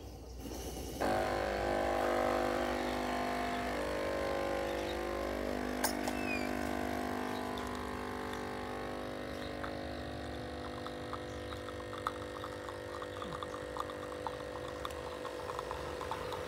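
Cafelffe capsule coffee machine brewing an espresso: its pump starts about a second in and runs with a steady hum while coffee streams into the cup. A single sharp click comes about six seconds in, and light crackling ticks join in the second half.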